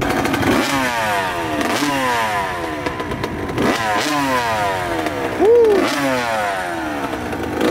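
Dirt bike engine revved over and over in quick throttle blips, each rev falling back off, with the highest rev a little past halfway.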